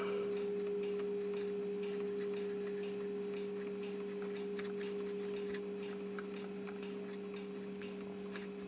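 A steady low hum made of two pure tones, one about twice the pitch of the other, slowly fading, with a few faint light ticks.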